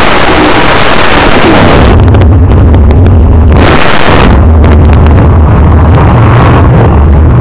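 Hot-rod coupe's open-header drag engine at high revs while spinning its rear tyres in a burnout, dropping to a loud low rumble about two seconds in. A second short burst of throttle comes about three and a half seconds in, then it rumbles low again as it rolls forward; the recording is overloaded throughout.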